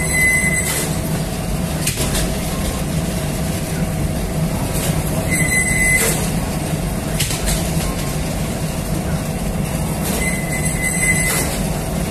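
Flatbread oven's wire-mesh conveyor belt and chain drive running with a steady mechanical hum. A high, whistle-like tone lasting under a second sounds three times, about five seconds apart.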